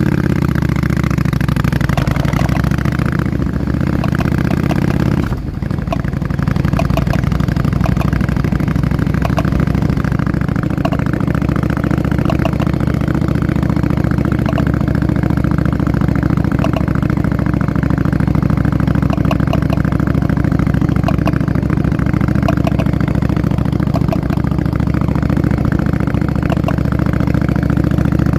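Yamaha Drag Star V-twin motorcycle engine running steadily, with a short dip about five seconds in. Over it come light clicks that repeat roughly once a second, the noise from the wheel that the owner is showing.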